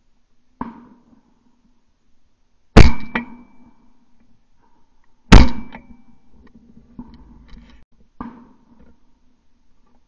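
Two loud, sharp bangs about two and a half seconds apart, each with a brief metallic ring, among a few lighter knocks.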